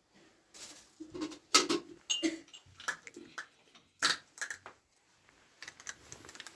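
Irregular knocks and clatters of objects being handled, a dozen or so sharp strikes, the loudest about a second and a half and four seconds in.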